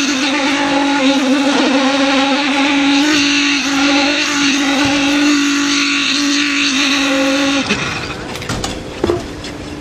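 Small petrol engine of a concrete poker vibrator running steadily at a high pitch while the vibrator's flexible shaft is worked into wet concrete. The sound cuts off abruptly about three-quarters of the way in, followed by a few scattered knocks.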